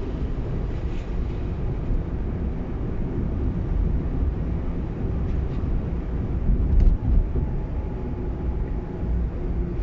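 Steady low road and engine rumble of a moving car.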